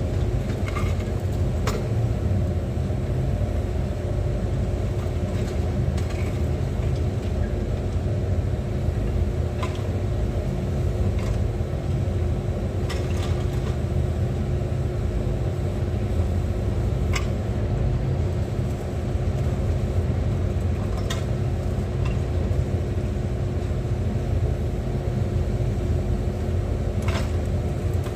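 Engine running steadily: a low rumble with a constant hum and occasional light clicks and knocks.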